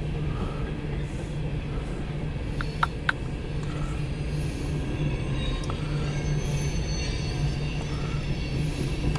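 Empty coal train's hopper cars rolling past on the rails: a steady rumble with two sharp metallic clicks about three seconds in.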